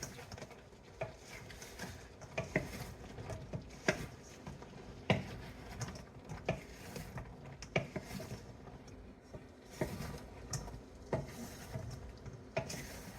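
A cooking utensil stirring and tossing chicken through a thick sauce in a pan, with irregular clicks and knocks of the utensil against the pan.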